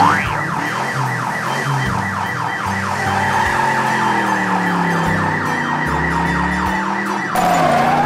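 Police car siren sound effect in a fast yelp, a quick rising sweep repeated several times a second. It cuts off about seven seconds in.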